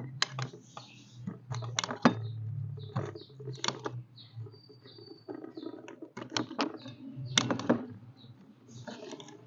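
Small kitchen knife slicing a bitter gourd into pieces on a plate: about a dozen irregular sharp clicks as the blade cuts through and taps down.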